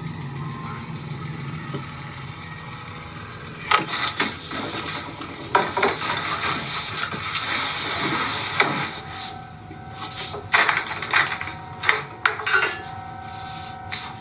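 Sharp knocks and clatters over a steady hiss, followed by a held steady tone broken by sharp clicks.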